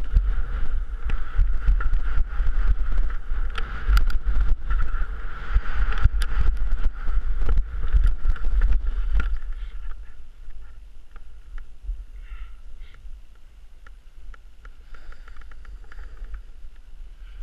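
Skis scraping and clattering over chopped-up, bumpy snow, with many sharp knocks as they hit the bumps, under a low rumble of wind buffeting the camera's microphone. About nine seconds in it drops to a much quieter, steadier hiss.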